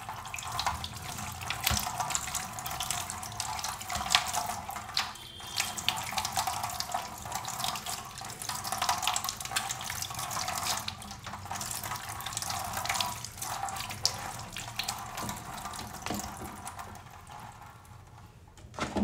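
Kitchen tap running into a stainless steel sink, the water splashing over hands rubbing a lemon and ginger root as they are rinsed. The flow stops near the end.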